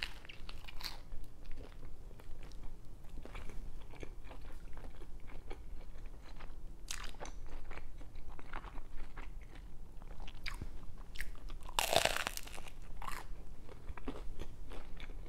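Close crunching and chewing of a toasted grilled cheese sandwich filled with mac and cheese, starting with a bite into the crisp toasted bread. There is a run of small crackles while chewing, and one louder crunch about twelve seconds in.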